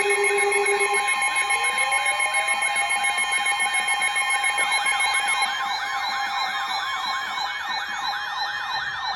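Several electronic sirens sounding at once, each sweeping rapidly up and down, over steady alert tones. About a second in, one siren winds up in a rising glide, and some of the steady tones cut off about halfway through.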